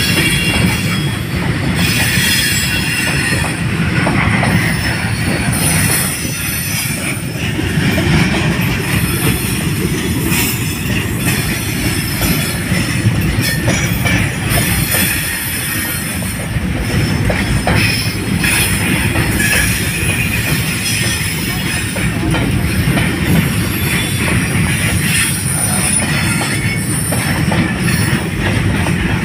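Container freight train wagons rolling past close by: a steady rumble of steel wheels on the rails, with clacks over the rail joints and high-pitched wheel squeal.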